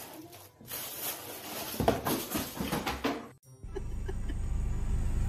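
Rustling and scrabbling with a few light knocks from a cat rummaging in a cardboard shoebox. After an abrupt cut about three and a half seconds in, the steady low rumble of an idling car is heard from inside its cabin.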